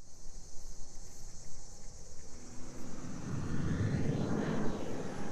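A jet airliner passing overhead, its engine noise swelling to a peak about four seconds in, over a steady high chirring of insects.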